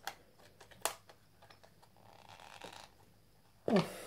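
Clear plastic waterproof housing of an action camera being handled just after its stiff latch has been forced open: two sharp light plastic clicks in the first second, then faint handling rustle. Near the end a short vocal sound with a falling pitch.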